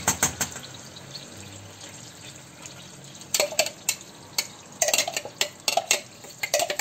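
Blended onion sizzling softly in melted butter in a frying pan. A spoon clicks sharply against the blender jug as the last of the onion is knocked out: a quick run of clicks at the start, then a few clicks a second from about halfway on.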